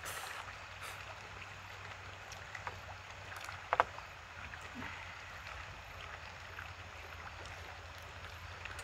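Steady outdoor background hiss with faint eating sounds: small clicks of chopsticks against plastic takeout trays and noodles being picked up, with one sharper click about four seconds in.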